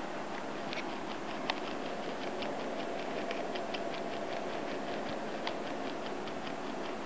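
A metal flour sieve is being shaken and tapped to sift buckwheat flour, giving a run of light ticks at about four a second, a few of them sharper, over a steady hiss.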